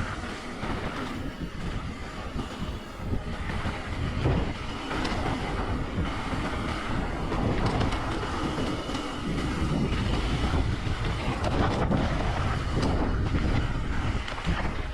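Mountain bike riding down a dirt trail: a steady rumble of tyres on dirt and wind on the microphone, with the bike clattering and rattling over bumps throughout.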